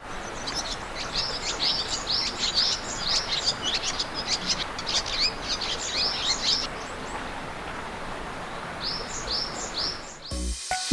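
Small birds chirping: quick runs of short, high chirps over a steady outdoor hiss, pausing for a couple of seconds and then a few more chirps. Music with a beat starts just before the end.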